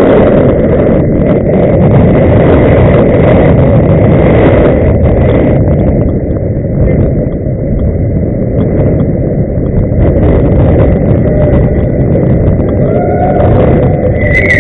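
Inline skate wheels rolling on road pavement: a loud, steady rolling rumble.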